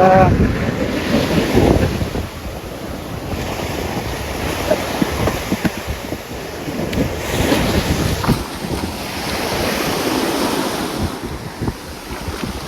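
Sea waves washing onto a sandy beach, the surf swelling and ebbing every few seconds, with wind buffeting the microphone.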